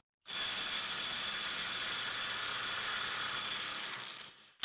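Kobalt XTR 24-volt brushless impact driver hammering steadily on a bolt torqued to about 306 foot-pounds, trying to break it loose. The hammering tapers off and stops near the end.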